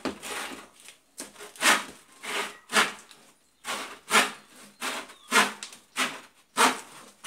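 Hand saw with a green handle cutting into the rim of a round tank bottom: rasping back-and-forth strokes at about two a second.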